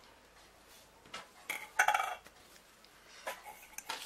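A few light knocks and clinks as a plastic tub of fiber paste and other craft supplies are handled and set down on the table, the busiest cluster about two seconds in.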